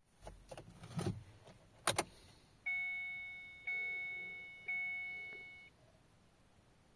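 Kia Cee'd II's dashboard warning chime ringing three times, about a second apart, each ding fading out, after a few clicks and knocks from the key and switchgear. No starter motor or engine is heard: the car does not crank.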